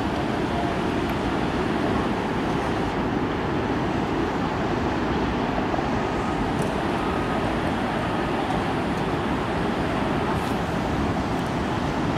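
Steady, even airport noise: the rumble of jet engines at taxi idle, with no distinct events.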